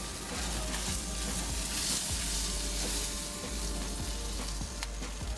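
Pompano fillet sizzling on hot propane-grill grates as a metal spatula slides under it and lifts it off, a steady crackling hiss.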